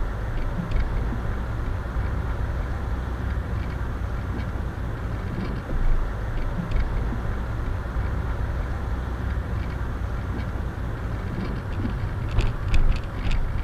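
Steady low rumble of a car being driven, engine and tyre noise heard from inside the cabin. A few short clicks come near the end.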